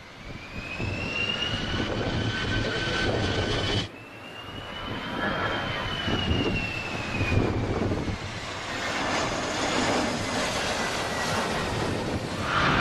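Jet airliner engines whining high over a broad rumble. The whine breaks off abruptly about four seconds in, and a second one starts that rises slightly, then falls in pitch as the aircraft passes.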